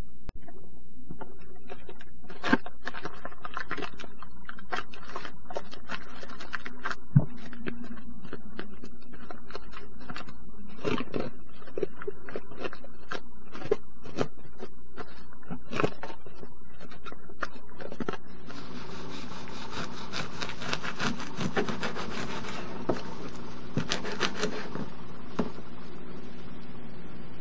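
Plastic cling film crinkling and rustling as hands wrap and press a rice-and-nori roll, with scattered small clicks and taps, over a steady low hum. About two-thirds of the way through, the crinkling turns into a denser, continuous crackle as the wrapped roll is handled and cut.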